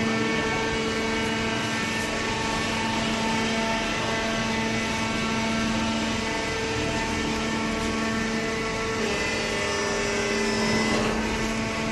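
Horizontal hydraulic carton baler running: a steady machine hum with a constant pitch, with a slight change in its higher tones about nine seconds in.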